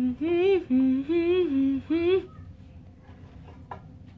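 A person humming a short tune of about six notes, stopping a little over two seconds in.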